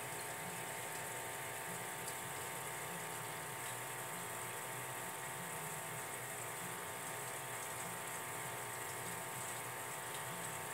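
Aquarium aeration running steadily: a motor hum with the fizz of a fine stream of air bubbles rising through the tank water.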